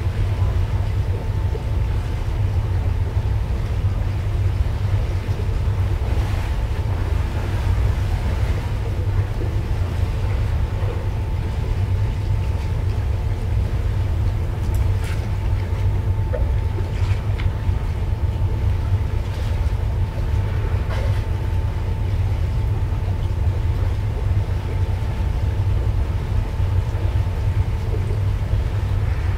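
Steady low rumble of the MV Seaventure's engines and machinery heard on deck while the ship cruises slowly, with a faint steady whine above it.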